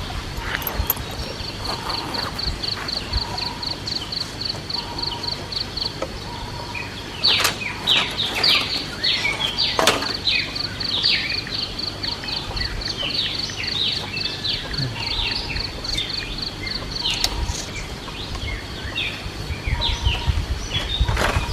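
Birds calling outdoors: many short, quick, high chirps, with a rapid, evenly repeated high note that runs for several seconds at a time, over a low background rumble.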